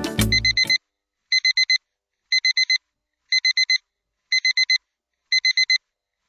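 Seiko QHE100S digital alarm clock's alarm beeping: groups of four short, high beeps, one group a second. Background music cuts off under the first group.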